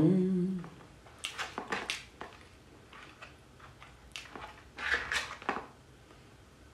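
Eating sounds: boneless fried chicken being chewed and chopsticks picking at a paper takeout box, heard as short crisp clicks and crunches in two bunches, about a second in and again around four to five seconds in.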